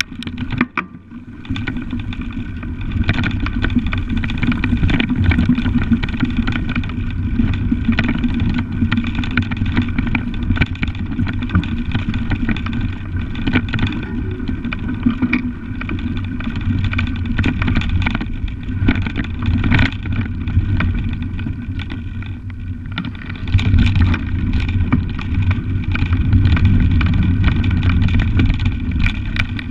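Bicycle ridden fast over a woodland dirt trail: a steady low rumble from the tyres and frame on the rough ground, with frequent knocks and rattles over bumps. The sound dips briefly about a second in.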